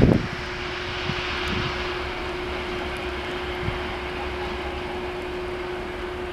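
TEM14 diesel shunting locomotive running light, its engine giving a steady drone with one held tone over a low rumble. A brief low thump comes right at the start.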